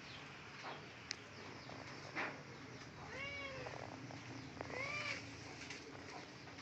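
Kitten meowing twice, about three and about five seconds in, each call rising and then falling in pitch. Short, high, falling chirps go on steadily in the background.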